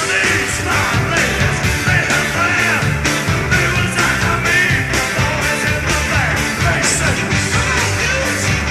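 Hard rock band playing live: electric guitar over a drum kit with cymbals and keyboard, loud and continuous.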